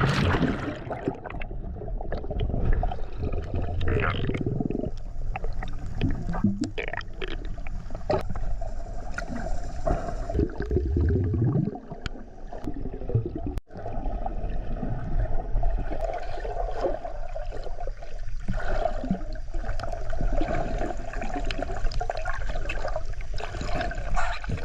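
Underwater sound picked up by an action camera held below the surface while snorkelling: muffled water churning and bubbling, with a steady drone throughout.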